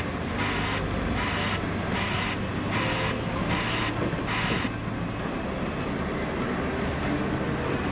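Heavy tracked excavator running, a steady low diesel hum under a regular clatter about every 0.7 seconds that stops about four and a half seconds in.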